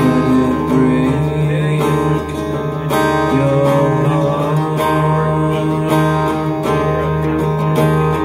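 Acoustic guitar playing a folk song, a continuous fingerpicked chord pattern with notes ringing on.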